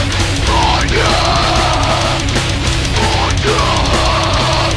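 Metalcore band playing loud with electric guitar, bass and drums, with a few rising and falling sweeps laid over the riff.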